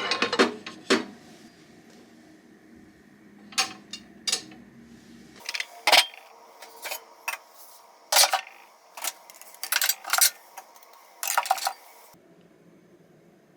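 Dishes and cutlery clinking and knocking, a series of separate sharp clinks at irregular intervals.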